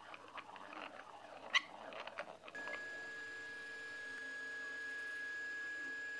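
A 3D-printed plastic worm drive turned by its hand crank, its teeth clicking irregularly, with one sharper click about a second and a half in. About halfway through this gives way to a steady high whine over a fainter lower hum from the running Anycubic i3 Mega 3D printer.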